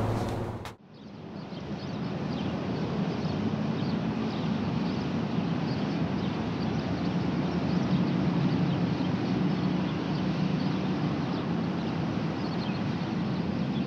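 Steady outdoor ambience: a continuous low background hum with faint bird chirps above it. It fades in just under a second in, after a brief dropout.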